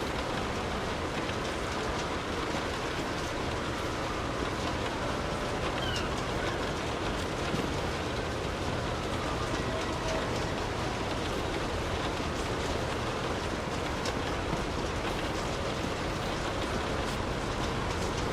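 Steady rain falling, with many separate drops ticking sharply through the even hiss.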